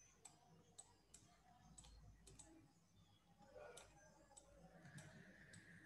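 Near silence with faint, irregular clicks, roughly one or two a second, made while line strokes are drawn on a computer screen.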